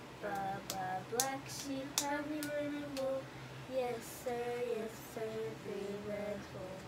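A woman and a young child singing a nursery song together in sustained notes, with a few hand claps.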